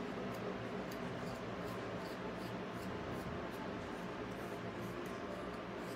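Faint short scratchy strokes, a few a second, of a hand-held grooming tool drawn through a wire fox terrier's coarse, wiry coat, over a steady low room hum.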